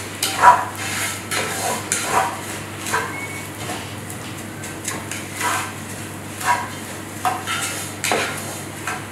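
Wooden spoon stirring and scraping around a pot, a short scrape about every second, with a pause of a couple of seconds midway.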